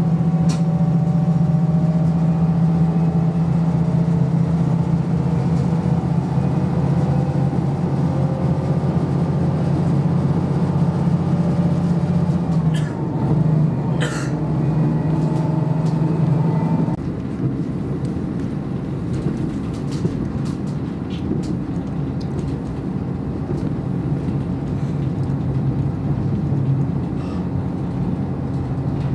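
Inside a KiHa 54 diesel railcar under way: a steady diesel engine drone over the running noise of the wheels on the rails. About halfway through come a couple of sharp knocks, and a little later the engine note drops and the whole sound gets quieter.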